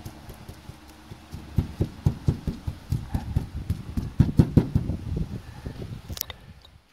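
Paintbrush dabbing resin into fiberglass matting on a Ford Transit's metal roof, heard as a quick run of taps about three a second. A single sharper click comes near the end.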